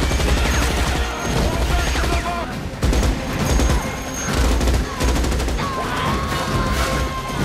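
Several Morita assault rifles firing fully automatic in rapid bursts, broken by a few short pauses.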